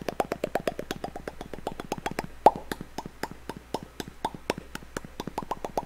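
A rapid, irregular run of short wet mouth pops, lip smacks made like kisses, about six a second, the loudest about two and a half seconds in.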